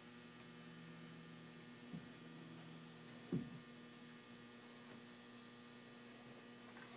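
Low steady electrical hum, with two short soft sounds about two and three and a half seconds in.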